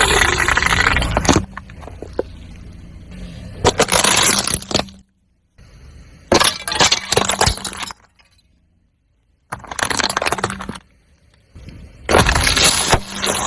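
A car tyre rolling over and crushing crunchy objects, making a cracking, breaking crunch. It comes as about five separate bursts, each a second or so long, with abrupt silences between them.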